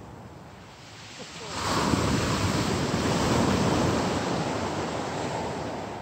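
A wave of surf rushing up a pebble beach: quieter at first, it surges in about one and a half seconds in, stays strong for a couple of seconds, then slowly ebbs away.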